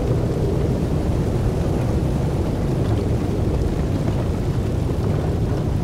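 Steady low rumbling noise of wind buffeting the microphone in blizzard conditions, with no distinct events.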